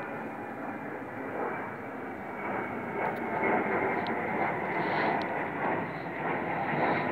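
Jet airliner passing high overhead: a steady, noisy jet rumble that grows louder about three seconds in.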